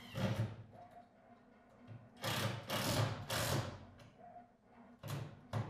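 Cordless drill driving screws into wood, its motor running in several short bursts: one right at the start, three close together in the middle and two brief ones near the end.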